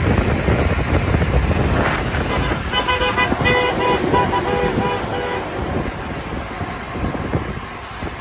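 A vehicle horn sounds a run of short toots for about two and a half seconds, a few seconds in. Under it is wind buffeting the microphone and the noise of passing road traffic.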